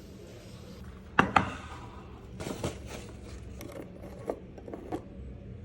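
Kitchen food-preparation handling noises: two sharp knocks about a second in, then a scrape and a few light clicks and taps.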